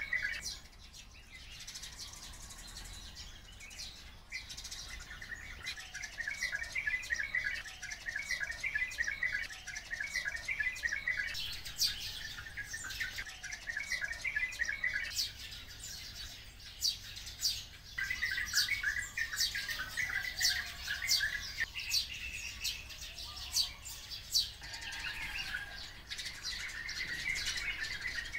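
Oriental white-eyes and sparrows calling together. Runs of rapid twittering chatter come and go, with many short, sharp high chirps over them that grow busiest in the second half.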